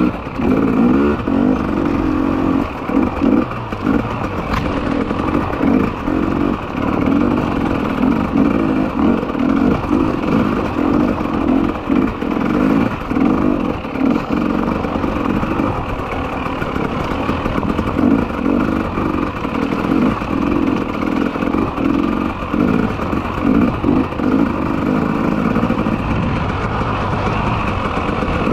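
Two-stroke enduro motorcycle ridden along a rough trail, its engine revving up and dropping off again and again as the throttle is worked on and off.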